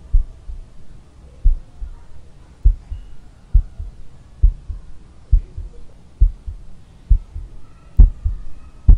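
A heartbeat-like soundtrack pulse: deep, low thumps about once a second, each followed by a softer second beat, over faint held tones.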